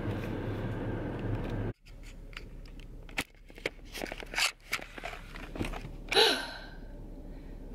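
Steady low hum inside a car cabin that cuts off abruptly just before two seconds in. It is followed by scattered clicks, rustling and knocks from handling the camera and clothing, with a brief voice sound about six seconds in.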